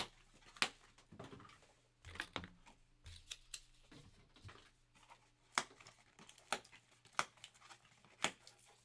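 Computer keyboard and mouse clicks: sharp single clicks about every half second to a second, with a few quicker runs.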